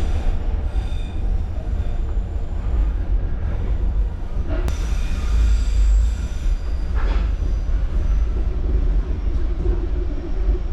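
Passenger train running along the track: a steady low rumble of the wheels and carriage, heard from inside the coach.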